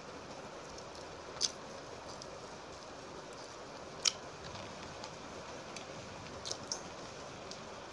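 A few short sharp clicks and crackles from fingers breaking apart crisp fried fish over a steel plate of wet rice, spaced a second or two apart over a steady hiss.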